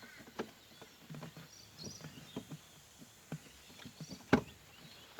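Faint clicks and taps of a screwdriver undoing a Phillips-head screw in a plastic gear-shifter handle, with one sharper click about four seconds in.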